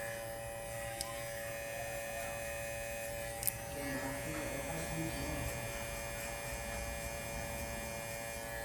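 Electric hair clipper running with a steady buzzing hum. Two short sharp clicks sound, about a second in and again at about three and a half seconds.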